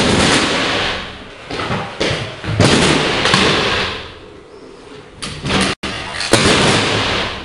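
Kick scooter riding a plywood ramp: wheels rolling loudly on the boards, with thuds and slams as the deck lands, in several separate runs.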